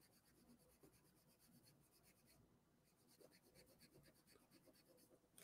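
Near silence, with a very faint, fast, scratchy rubbing of fingertips working over paper in the sketchbook, pausing briefly about halfway through.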